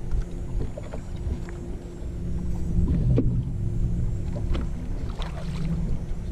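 Wind noise on the microphone and water lapping against a bass boat's hull, with scattered small knocks and splashes and a faint steady hum.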